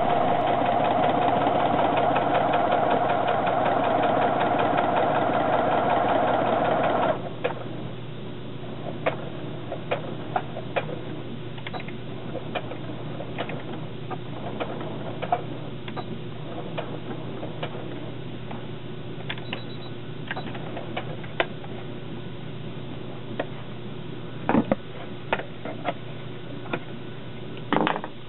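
Electric sewing machine running at speed, stitching through ribbed plastic sheet, then stopping suddenly about seven seconds in. After that a steady low hum stays, with scattered light clicks and taps of handling at the machine.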